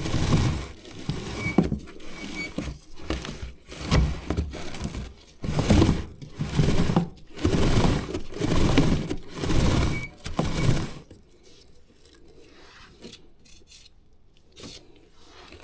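Motorcycle drive chain being scrubbed by a kerosene-wet chain-cleaning brush as the chain is turned by hand. It makes scraping strokes about once a second, which fall to faint about eleven seconds in.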